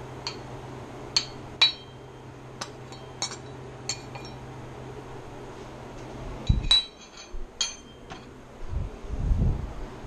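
Kitchen utensils and dishes clinking: about a dozen sharp, ringing strikes, with a few dull thumps in the last few seconds.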